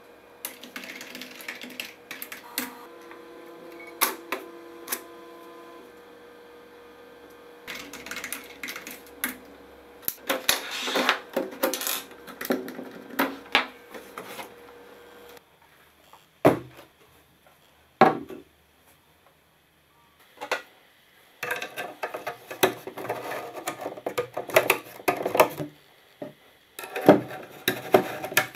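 Irregular mechanical clicking and tapping, dense in bursts with a few single loud clicks, and a faint steady hum through the first half that stops about halfway.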